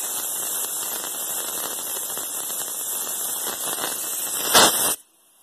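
Compressed air hissing steadily from a Triumph 950 tire changer's bead blaster and inflator as a new trailer tire is inflated on its rim. A brief louder burst comes near the end, then the air cuts off suddenly.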